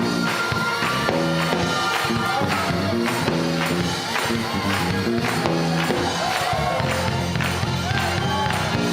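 Upbeat gospel music with a tambourine keeping a steady beat, about three strikes a second, over held chords and a melody line.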